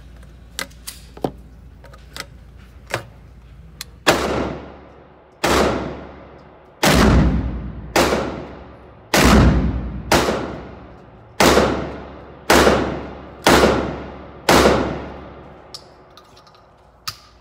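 12-gauge shotgun firing 3-inch slugs, about ten loud shots roughly a second apart, each with a long echoing decay off the range's metal walls. Light metallic clicks of the gun's action come before the shooting and again near the end.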